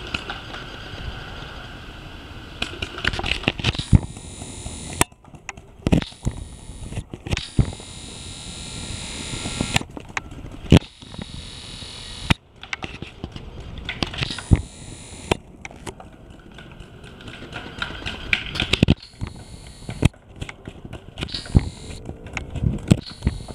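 Paintball markers firing: sharp pops, some loud and close, others fainter and in quick rapid-fire strings, scattered irregularly throughout.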